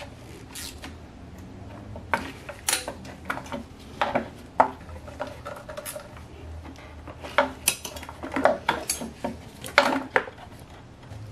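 Metal fuel rail with its fuel injectors clinking and knocking as it is handled and pressed into the intake manifold's injector ports: irregular light clicks and clatters, the louder ones about a third of the way in and again near the end.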